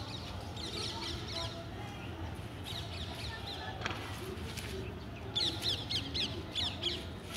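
Birds calling in quick runs of short high chirps, in three bouts, the loudest near the end.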